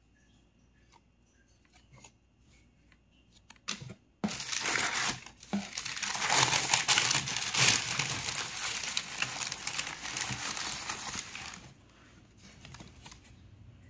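Shoebox wrapping tissue paper crinkling and rustling as it is pulled back by hand, starting suddenly about four seconds in and dying away shortly before the end. A few faint ticks of handling come before it.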